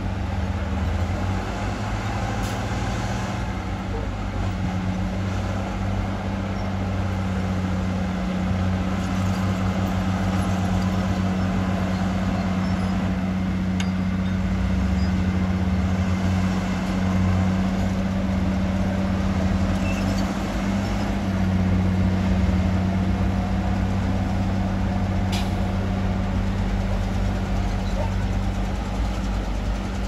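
Heavy earthmoving machine's diesel engine running steadily at a constant pitch, with a few faint clicks.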